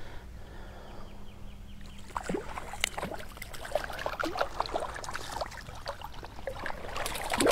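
Small irregular splashes and drips of water as a hooked trout is brought to hand and grabbed at the surface, starting about two seconds in.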